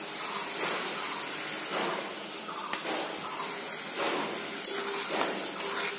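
Masala paste of tomato, ginger, garlic and green chilli sizzling steadily in oil in a kadai while it is fried down. A spatula scrapes the pan a few times, the sharpest strokes near the end.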